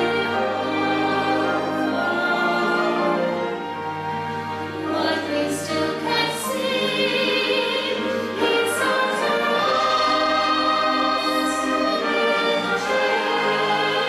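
A female soloist singing with a choir and orchestra accompanying her, in sustained notes.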